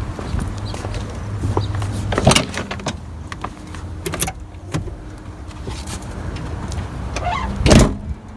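Jumper cable clamps being handled and connected to a car battery: a few sharp clicks and knocks, the loudest near the end, over a steady low hum.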